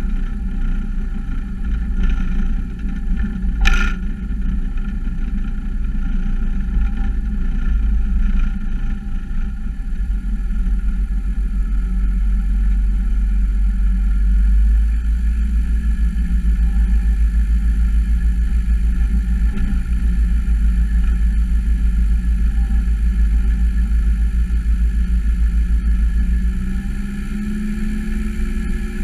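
Single piston engine and propeller of a Diamond DA-40 NG light aircraft, an Austro AE300 turbo-diesel, running steadily at low taxi power, heard from a camera mounted outside the airframe. There is a brief click about four seconds in, and the engine note shifts slightly near the end.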